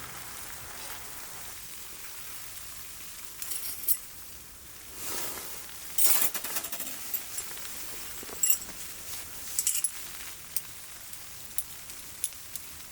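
Scattered light clinks and knocks of metal camp cookware and utensils being handled, over a faint steady hiss.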